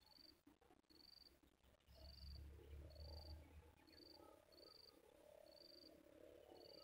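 Near silence outdoors with a small animal repeating a short, high chirp about once a second. A faint low murmur joins about two seconds in.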